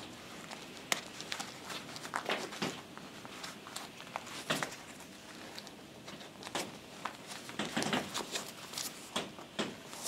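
Fabric rustling and small irregular clicks as a leather belt is fed through the back loop of a belt pouch and the pouch is worked into place, with one sharper click about a second in.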